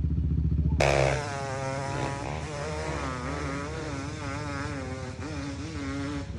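Dirt bike engine under hard throttle on a steep hill climb. A heavy low rumble cuts off about a second in, and the engine is then heard at high revs, its pitch rising and falling quickly as the throttle is worked.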